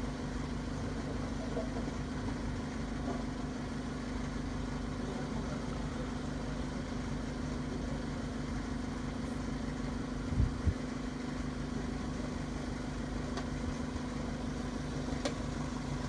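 Van engine idling steadily with its bonnet open, a constant hum and low rumble. Two short low thumps come about ten seconds in.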